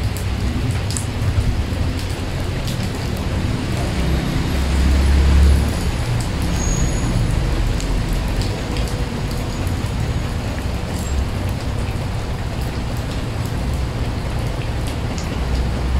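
Steady rain falling onto a large puddle on paved ground, with scattered sharp drop splashes. A low rumble runs underneath and swells briefly about five seconds in.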